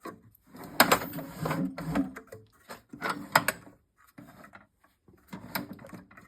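Hand tools being handled and put back in a toolbox: a run of sharp clicks and clatters.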